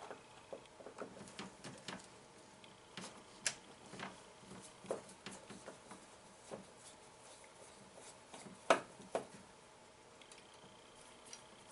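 Phillips screwdriver and hands working the metal parts of a pinball flipper assembly: scattered faint clicks and taps, the sharpest about three and a half and nine seconds in.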